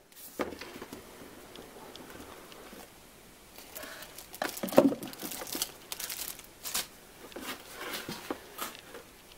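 A small cardboard box being opened and handled, with the lid sliding off, light taps and knocks, and a plastic bag crinkling.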